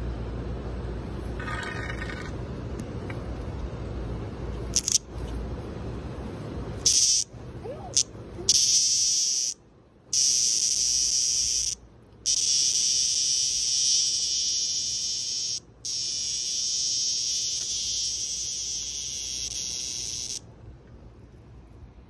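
Cicada giving a loud, harsh, high buzz in long bursts that break off briefly a few times and then stop suddenly: the distress buzz of a cicada disturbed by a dog. Wind rumbles on the microphone before the buzzing starts.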